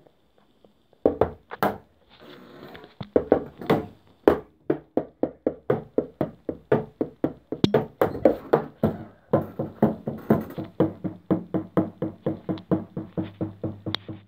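A drumstick striking the pads of an electronic drum kit in a steady run of hits, about three or four a second, after a near-silent first second. A low steady tone sits under the hits in the second half.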